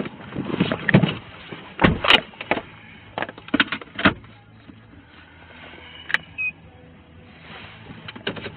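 A person climbing into a car: rustling of clothing and gear, a loud door thud about two seconds in, then a run of clicks and knocks as he settles into the seat, and one more sharp click later.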